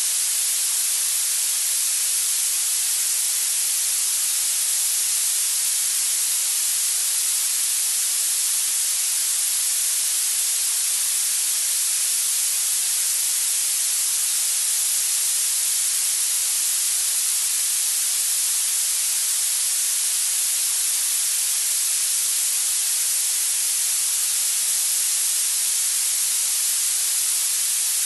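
Steady hissing noise used as a tinnitus sound-therapy masker, even and unchanging, bright and weighted toward the high pitches.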